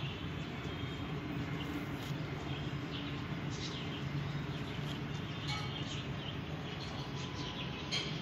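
Steady low background hum with faint high chirps scattered through, and a single sharp click just before the end.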